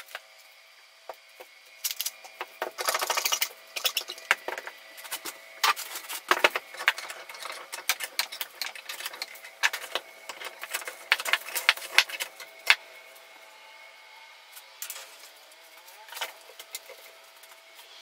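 One-handed quick-release bar clamps ratcheting tight in runs of quick clicks, with knocks and rattles from handling the glued-up log box and clamps in a bench vise. The clicking is densest near the start and thins out after about two thirds of the way.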